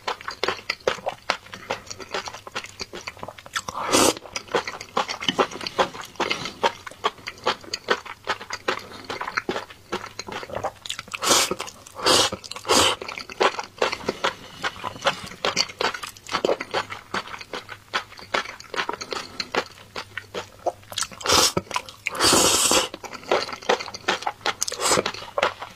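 A person eating enoki mushrooms and noodles in a thick sauce: steady wet chewing and lip-smacking clicks, broken by a few louder slurps of noodles, several in the middle and a long one near the end.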